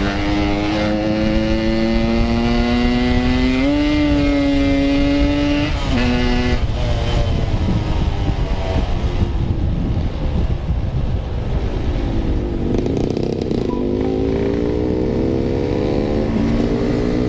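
Yamaha RX King two-stroke single-cylinder motorcycle engine pulling under acceleration, its pitch climbing for about six seconds before dropping off, then rising again near the end, over wind rush.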